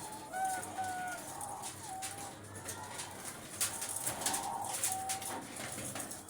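Pied doves cooing: several short, level, fairly high notes, some overlapping, with a few brief clicks or rustles about two thirds of the way in.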